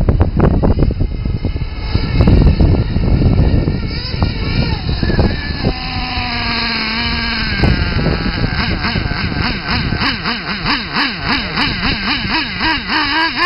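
Small two-stroke glow engine of a nitro Losi RC monster truck running. Rough wind-on-microphone noise covers it at first; about halfway the engine holds a steady high note, and in the last few seconds it idles with its pitch wavering up and down a few times a second.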